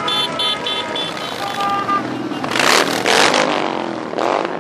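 A stream of motorcycles running past close by, with three quick high beeps in the first second and two loud rushes as bikes pass the microphone about halfway through, then a smaller one near the end.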